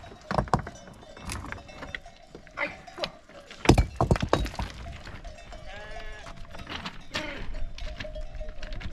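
A flock of sheep bleating, with one clear bleat about six seconds in, over scattered knocks and clatters, the loudest a little before four seconds in.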